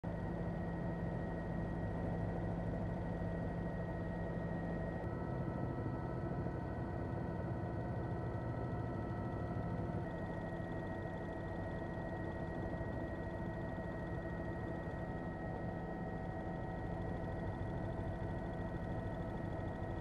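Steady drone of a helicopter's turbine engine and rotors, heard from aboard, with a thin whine over a low rumble. The tone shifts slightly about five and ten seconds in.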